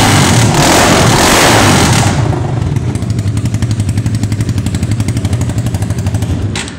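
Honda CBR250R single-cylinder engine running with no muffler, really loud. It is held at higher revs for about two seconds, then drops back to a fast, even popping idle, and dies away near the end.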